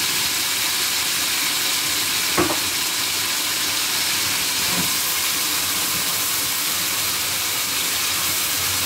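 Diced carrot, chayote, garlic and tomato sizzling steadily in hot oil in a frying pan, with a single light knock about two and a half seconds in.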